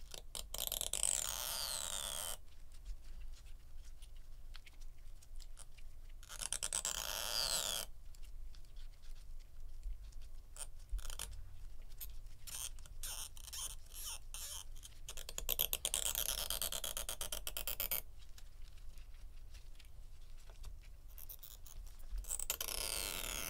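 Adhesive pull tab peeling off a 16-inch MacBook Pro battery as it is wound around metal tweezers. Four spells of a crackling, scraping peel, each about two seconds long, with a high hiss that falls in pitch, and faint ticks between them.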